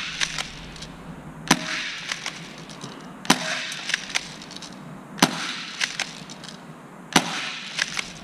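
CO2 airsoft pistol, a replica of the FN FNS-9, fired four times at a steady pace about two seconds apart. Each shot is a sharp crack with a short tail, and there are fainter ticks between the shots.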